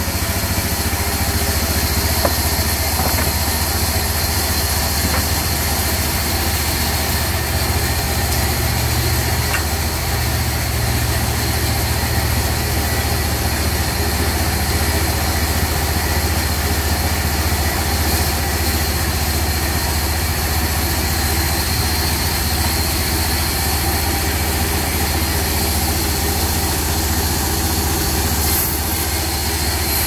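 Diesel engine driving a band sawmill, running steadily with a low drone.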